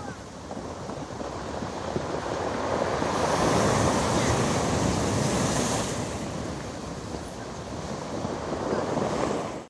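Storm surf on the sea: heavy waves breaking and washing on the shore. One surge builds to a peak about three to five seconds in and then eases off.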